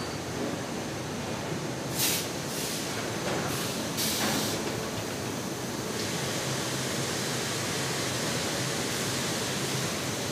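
Steady industrial noise of slaughter-line machinery, with several short bursts of hissing about two to four and a half seconds in. About six seconds in the noise turns brighter and steadier.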